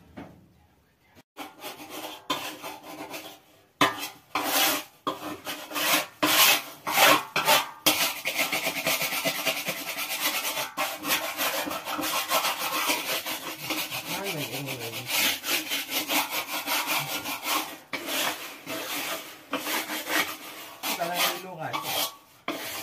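Hands rubbing and working flour in a large aluminium basin: a dense, rapid scratching rasp. A few separate strokes come first, and the steady run starts about four seconds in.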